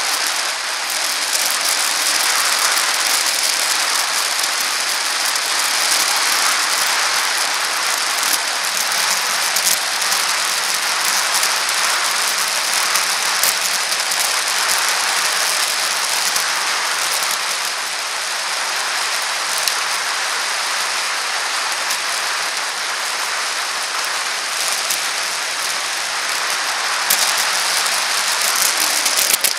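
Steady rushing road and wind noise of a bicycle riding on a paved path, picked up by a camera on the bike, with many small rattles and clicks throughout and a few louder knocks near the end.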